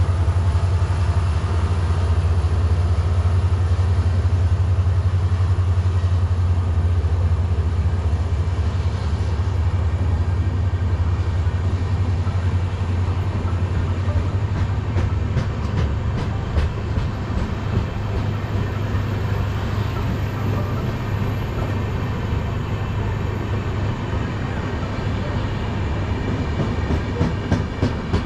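An express train's passenger coaches rolling past, wheels clattering over rail joints, with the clatter growing denser in the second half. A low diesel engine hum, from the locomotive pulling away, fades over the first half.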